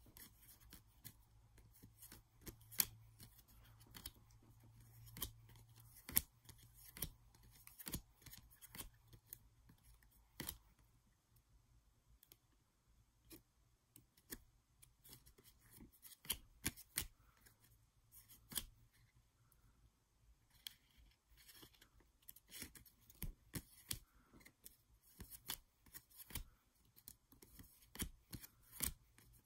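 Glossy baseball trading cards being flipped through one at a time in the hands, each card clicking and snapping as it is slid off the stack. The clicks are sharp and irregular, several a second, and come thicker near the end.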